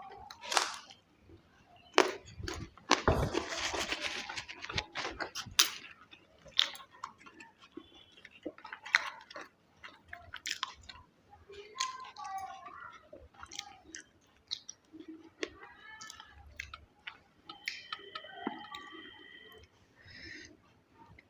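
Close-miked eating: wet chewing and mouth clicks, with a burst of loud crunching about two to five seconds in.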